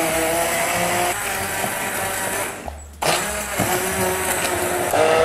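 Kenwood immersion blender running in a saucepan, puréeing cooked pumpkin into ketchup. The motor stops for a moment just under three seconds in, then starts again.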